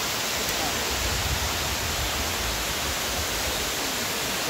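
Steady, even rushing roar of a waterfall.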